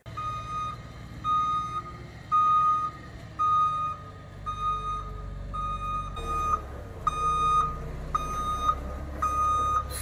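Concrete mixer truck backing up: its reverse alarm beeps about once a second over the low rumble of the diesel engine, which grows louder about four seconds in as the truck comes closer.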